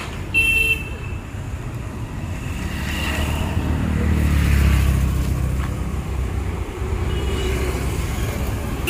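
Low rumble of road traffic that swells as a vehicle goes by midway, with a short horn toot about half a second in.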